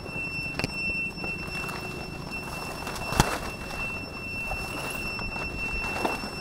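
Lotus leaves and grass rustling and brushing against a handheld camera as it is carried through a lotus patch, with a sharp knock about three seconds in. A thin steady high tone runs underneath.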